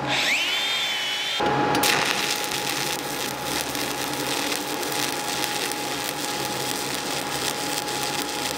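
An angle grinder spins up with a rising whine and runs briefly. Then, after a cut, a stick welding arc crackles and hisses steadily with a steady tone beneath it as a cap bead is run on a 2G groove weld.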